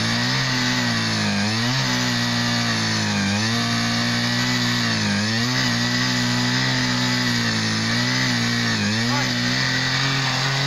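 Two-man petrol earth auger's engine running at high throttle as the auger bores a fence post hole in soil. Its pitch dips several times as the bit bites into the ground and bogs, then recovers.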